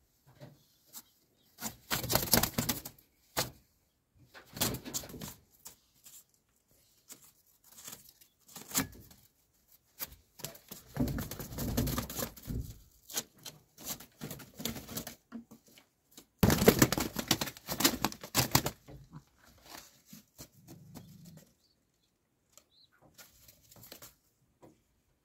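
Pigeon wings flapping hard in several irregular bursts, each a second or two long, as a pigeon struggles against a cat.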